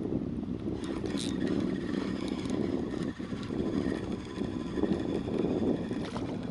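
Fishing reel being wound in on a lure retrieve, a steady mechanical whirr over a steady low rushing noise, with a couple of small clicks.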